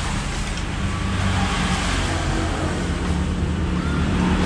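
Motorcycle engine idling steadily, a low even running note under a broad exhaust hiss.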